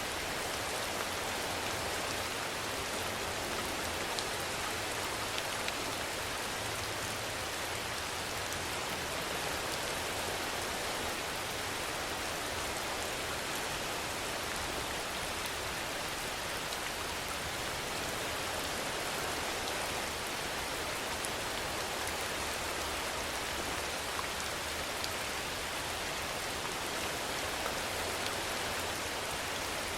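Steady rain falling in an even hiss, with faint scattered drop ticks and no rise or fall.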